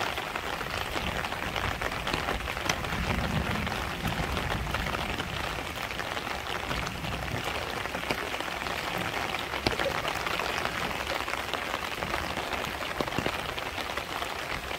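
Steady rain falling, a dense even hiss scattered with many small drop ticks.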